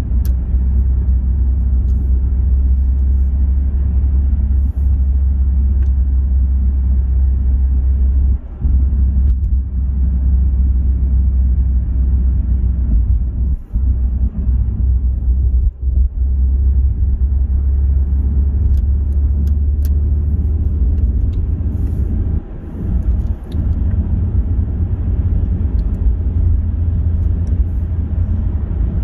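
Steady low rumble of a car travelling at motorway speed, mostly deep tyre and road noise, dipping briefly a few times.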